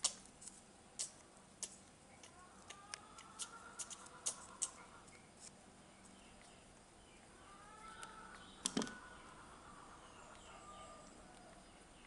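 Small, sharp clicks come in a quick scatter, with one louder click near the end. Faint, thin squeaky calls rise and fall in two stretches, from a small baby animal being hand-fed.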